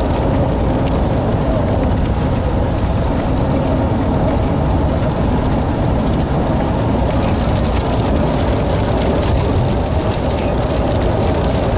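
Steady road and engine noise inside a moving car, loud and unbroken.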